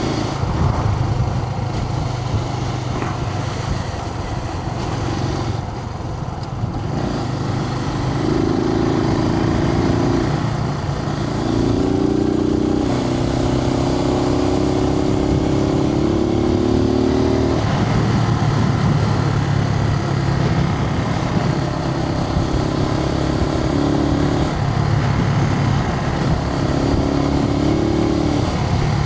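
Suzuki TU250X's 249 cc air-cooled single-cylinder engine running under way, heard from a microphone inside the rider's helmet over a steady rush of wind noise. The engine note rises and falls with the throttle several times.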